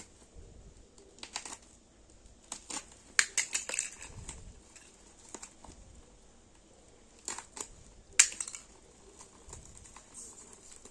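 Irregular clicks, taps and brief rustles of small objects and packaging being handled, in scattered clusters, with the sharpest click about eight seconds in.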